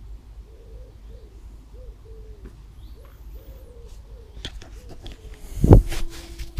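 A pigeon cooing in repeated phrases of short, low notes. Near the end there is a single loud thump.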